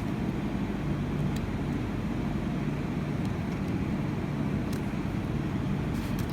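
Steady low background hum, strongest in the low range, with a few faint small clicks.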